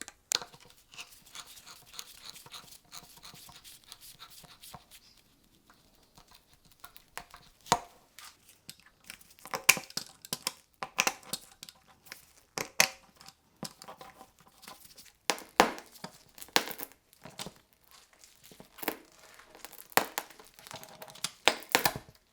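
Hand-work noises of a tire puncture repair: a crinkling, tearing rustle for the first few seconds, then irregular sharp clicks, knocks and scrapes, some with a slight metallic ring, as tools and parts are handled.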